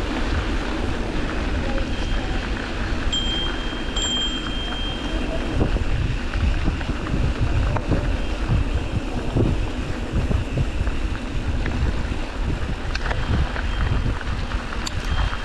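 Wind buffeting the microphone with a steady rumble, as if moving along on a ride. A thin high tone sounds from about three seconds in for about two seconds, and faintly again near the end.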